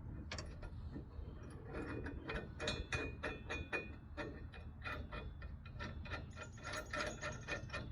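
Hand socket ratchet clicking as bolts and nuts are turned down, a quick even run of clicks about four a second.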